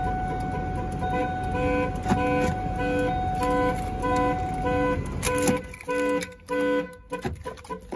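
2001 Ford Expedition's anti-theft alarm going off, sounding the horn in rapid pulses about twice a second, which stop about seven seconds in. A steady tone runs beneath for the first five seconds.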